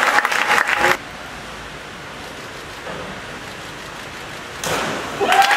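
Spectators applauding for about the first second, cutting off suddenly to a steady hiss of hall background noise. Applause with voices comes back near the end.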